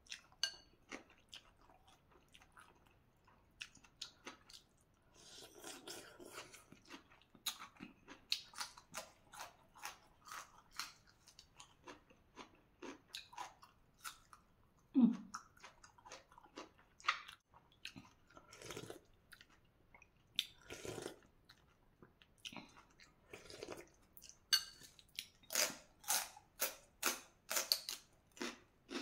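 Close-up eating sounds: crisp crunching bites and chewing of raw water spinach stems, with a few longer noisy spells of slurping noodle soup. A short low sound about halfway through is the loudest moment.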